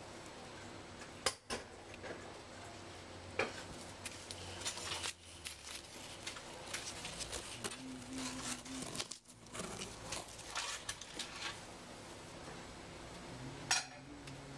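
A cat pushing and climbing through the long leaves of a houseplant: leaves rustling and scraping, with scattered small clicks and taps and a few sharper clicks, one about a second in and one near the end.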